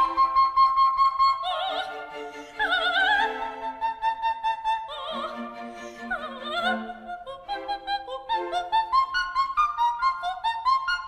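Operatic soprano singing with orchestral accompaniment: high held notes with wide vibrato, then a rising run of short, detached coloratura notes.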